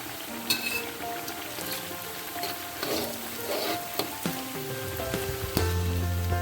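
Food frying in hot oil, a steady crackly sizzle with a few sharp clicks, under background music whose bass line comes in near the end.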